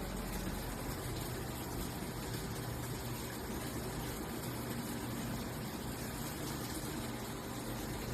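Top-loading washing machine running: a steady rushing, water-like noise over a low hum.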